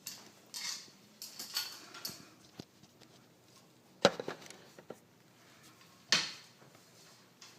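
Rustling and clattering with a few sharp knocks, the loudest about four seconds in and another about six seconds in.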